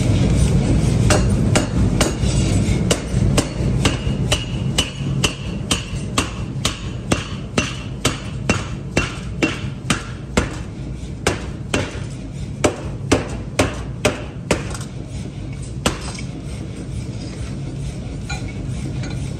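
Power forging hammer striking a red-hot steel rotavator stub axle blank in its die: a rapid run of sharp metallic blows, about two a second, that stops about three-quarters of the way through. A steady low machine hum runs underneath.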